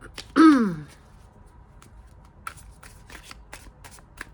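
Tarot deck being shuffled by hand: a string of quick card flicks and clicks, thickest in the second half. About half a second in there is a short, loud, falling vocal sound.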